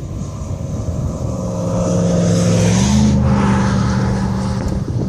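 A road vehicle passing by, its engine hum and tyre noise growing louder to a peak about three seconds in, then easing off.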